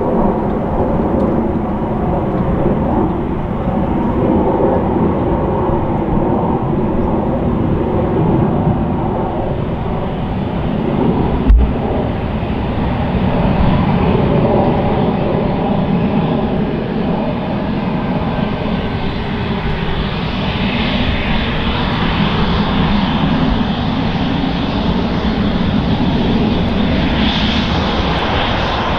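Twin jet engines of an Embraer E190 airliner rolling out on a wet runway just after landing, with a steady roar and rumble. The hiss grows brighter later on as the aircraft comes closer. A single sharp thump comes about twelve seconds in.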